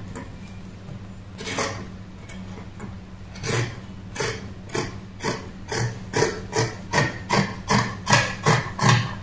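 Scissors snipping through print fabric on a tabletop: one cut, then a steady run of snips about two a second, growing quicker and louder toward the end.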